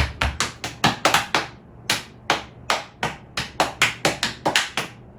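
Body percussion: sharp hand slaps and claps in a quick, uneven rhythm of about four strikes a second, beating out a song's rhythm for others to guess. A deeper thump comes right at the start.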